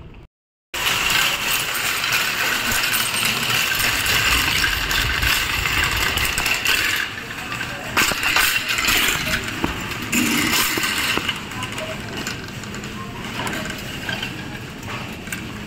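A wire shopping cart being pushed through a store: the metal basket rattles and jingles and the wheels roll over the floor. This starts after a moment of silence near the start and runs on loudly, easing off somewhat in the second half.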